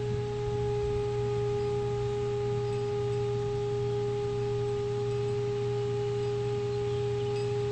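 Electric drive of a Terex HyPower hybrid utility truck running at a steady speed: one steady whine over a low hum.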